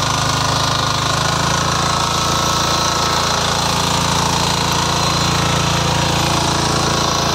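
Power weeder's small engine running steadily at working speed, with a fast, even pulsing beat, as it tills soil between corn rows.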